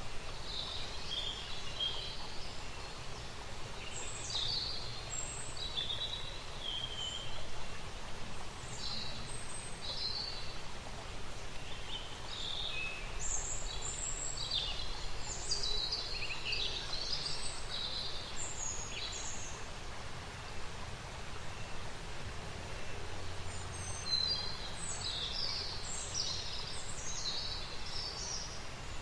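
Outdoor ambience of small birds chirping and calling over a steady low background noise. The chirps come in scattered bursts and are busiest in the middle and again near the end.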